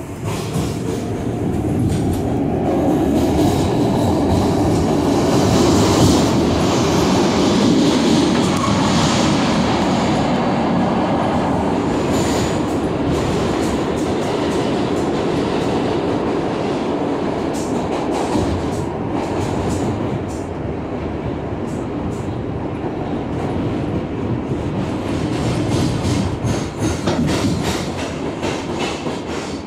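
R62A subway car running through a tunnel, heard from inside the car: a steady rumble of steel wheels on rail with clicking over the rail joints. It grows louder over the first few seconds, then holds.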